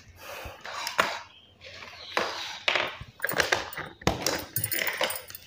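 Small hard objects clicking and clinking as they are rummaged through and picked up by hand, with a few sharper knocks among irregular rustling. These are most likely small electronic parts such as resistors being sorted on a table.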